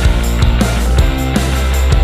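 Rock background music with a steady drum beat and guitar.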